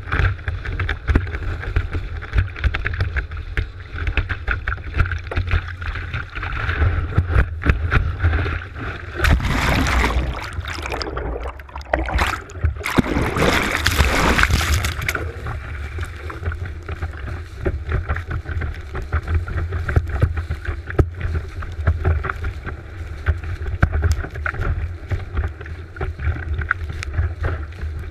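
Kiteboard planing over choppy water, heard from a board-mounted GoPro: steady rushing and splashing of water with a constant low rumble. Twice, about a third of the way in and again about halfway, the camera goes into the spray and the water noise surges.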